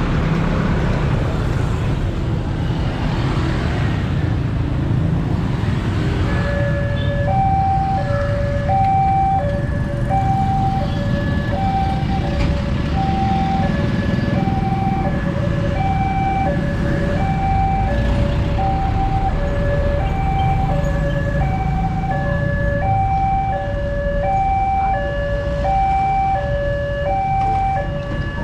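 Electronic level-crossing warning alarm starting about six seconds in, sounding two alternating tones, each held about half a second, over the running of passing motorcycles and trucks. It signals an approaching train as the crossing barriers come down.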